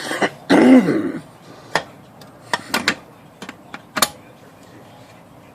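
Scattered metal clanks and clicks from a Royal Safari manual typewriter and its metal lid being handled and pressed while the lid is bent, with the loudest knocks in the first second and another sharp one about four seconds in.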